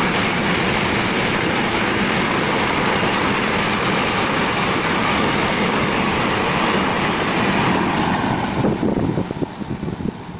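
Container freight train wagons running past close by at speed: a loud, steady rush of wheels on rail. About eight and a half seconds in the last wagons go by, the noise drops off quickly, and a few separate wheel clacks are heard as it fades.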